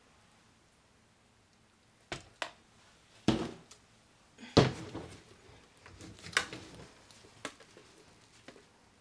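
A few knocks and clicks as a plastic pouring pitcher is handled and set down on the work table. The loudest comes about halfway through, followed by lighter handling noise and a few small clicks.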